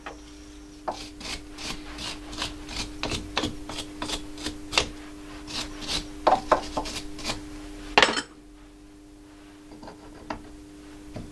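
Hand file rasping on steel in short strokes, about two or three a second, dressing the square bar so that the socket will fit. A steady hum runs underneath, and a sharp knock comes about eight seconds in, after which the strokes stop.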